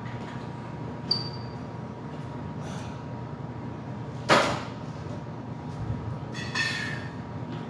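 A heavily loaded barbell with iron plates is racked onto the steel hooks of a power rack, giving one loud metal clank about four seconds in. A light metallic click comes about a second in, and a ringing clink of plates comes near the end, over a steady ventilation hum.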